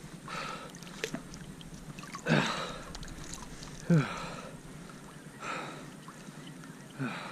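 Regular sloshing splashes of water, about one every second and a half, like someone wading through shallow marsh water step by step.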